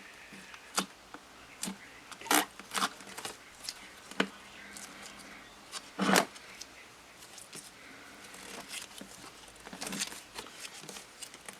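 Clear slime being worked by hand, giving irregular sticky clicks and pops, about a dozen, loudest about two and six seconds in.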